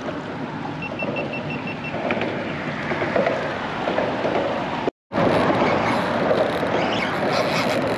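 Steady wind and water noise on a small fishing boat. About a second in there is a run of six faint short beeps, and the sound cuts out for a moment near the middle.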